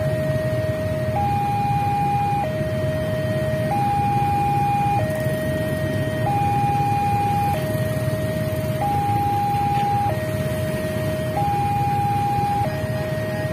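Railway level-crossing warning alarm sounding an alternating two-tone signal, low then high, each tone held about a second and a quarter, warning that a train is approaching while the barrier is down. A low rumble of traffic engines runs underneath.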